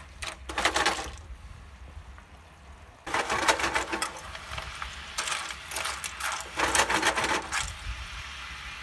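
Cockles and clams sizzling in garlic butter in a frying pan, their shells clinking and scraping as they are stirred with a fork. The sizzle and clatter grow louder about three seconds in.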